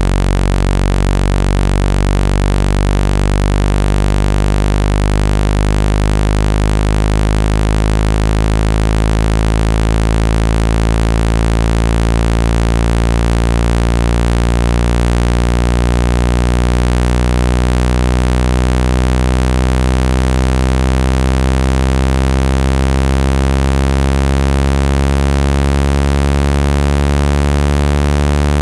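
Generated speaker-cleaning tone: a loud, low buzzing tone rich in overtones, held at an even volume, its pitch slowly drifting upward.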